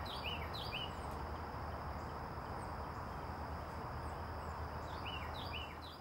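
Outdoor wetland ambience: a small bird gives quick runs of sharp chirps twice, near the start and again about five seconds in, over a thin steady high tone and an even background hiss.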